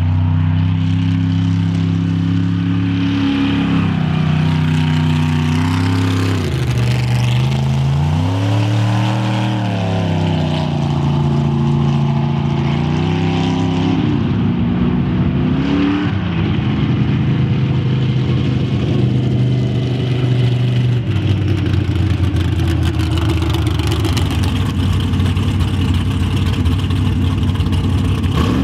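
A mega truck's big engine running hard under racing throttle. Its pitch drops and climbs several times in the first half as the driver lifts and reapplies the throttle, then holds steady at high revs.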